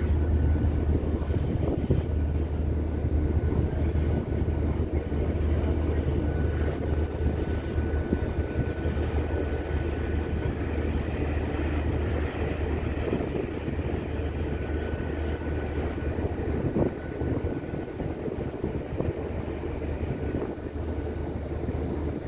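Steady low drone of a ship's engines on a river at night, with a wash of water and wind noise over it.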